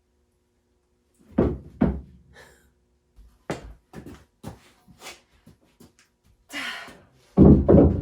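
Hard objects being knocked and set down: two heavy thuds about a second and a half in, a run of lighter knocks and clicks, a short scrape, then another heavy pair of thumps near the end.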